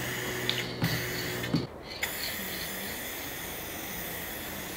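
Aerosol can of spray lacquer spraying over small wooden pieces, a steady hiss.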